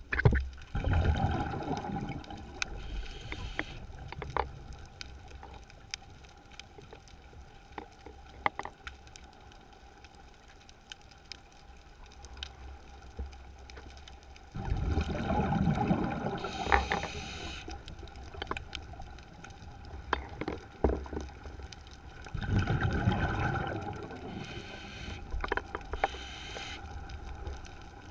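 Scuba diver breathing through a regulator, heard underwater: three bursts of rumbling exhaled bubbles, at the start, about halfway and about three-quarters through, each followed by a short hiss. Scattered sharp clicks run throughout.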